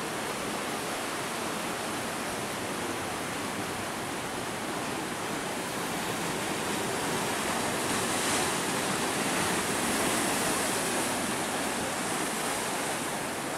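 Sea surf breaking and washing over shoreline rocks, a steady rush that swells a little about two-thirds of the way through.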